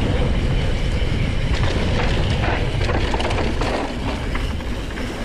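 Mountain bike riding fast down rough dirt singletrack: wind buffeting the microphone under a steady rattle and clatter from the bike, with sharper knocks over bumps through the middle.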